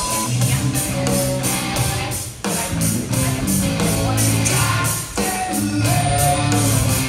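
Rock music with singing and electric guitar over a steady beat.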